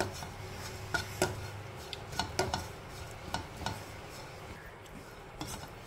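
A spatula stirring and scraping grated dry coconut as it toasts in a nonstick kadhai, with about eight scattered light taps of the spatula against the pan.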